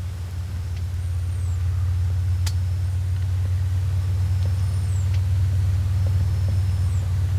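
Steady low rumble of a vehicle engine, slowly growing louder. Over it, a small bird gives a short, high, falling chirp about every second and a half, and there is one sharp click midway.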